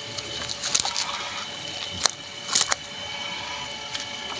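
Handling noises around a mesh keepnet of carp: a few sharp clicks and knocks over a faint steady hum.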